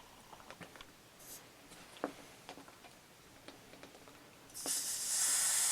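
A few faint clicks and taps from handling a tire and inner tube. Then, about four and a half seconds in, a steady hiss of air starts at the tire's valve and keeps going.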